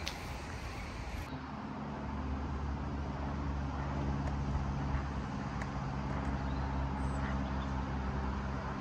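An engine running steadily at one even pitch, a low hum that sets in about a second in, after a stretch of plain outdoor background noise.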